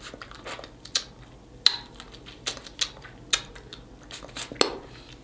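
Snow crab leg shells cracking and clicking as they are broken open and picked at while eating: about seven sharp, irregular snaps.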